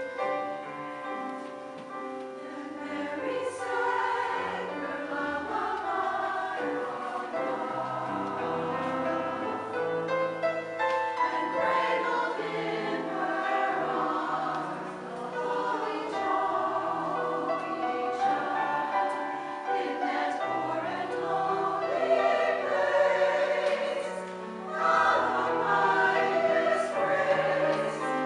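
Community choir singing a choral piece in harmony, with sustained low notes held underneath.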